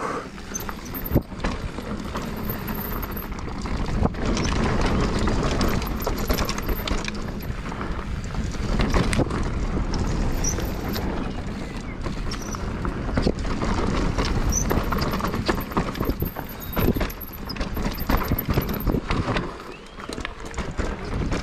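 Mountain bike riding down a rough dirt trail: a steady rumble from the tyres rolling over ground, with many sharp knocks and rattles as the bike hits stones and roots. The loudness rises and falls throughout.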